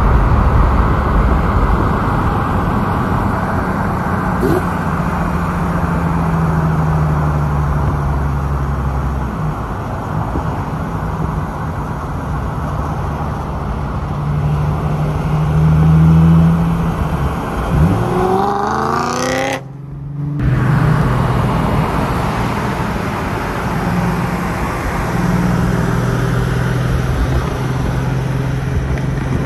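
BMW E92 M3 Competition's 4.0-litre V8 and exhaust running at a steady cruise under road and wind noise. About eighteen seconds in it revs up with a rising pitch. The sound breaks off briefly just after the rev, then settles back to a steady drone.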